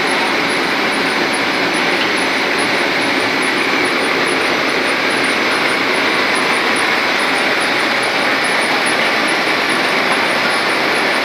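One-colour rotogravure printing machine for plastic bag film running, a loud, steady mechanical noise with a faint, high ticking about four times a second.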